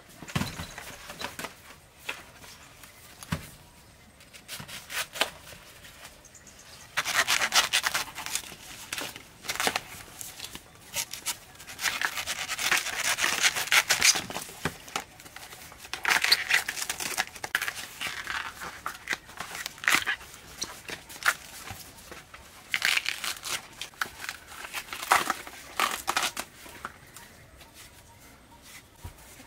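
Food-preparation handling noises: irregular bouts of crisp rustling with scattered clicks and taps, several separate bouts a few seconds apart.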